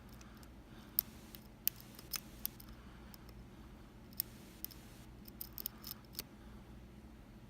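Lock pick working the pins of a Kaba Quattro S dimple lock: scattered light metallic clicks and small scrapes, several in quick succession about five to six seconds in.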